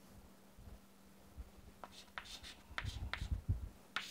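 Chalk writing on a chalkboard: a quick run of taps and short scratches starting about two seconds in, over a faint steady hum.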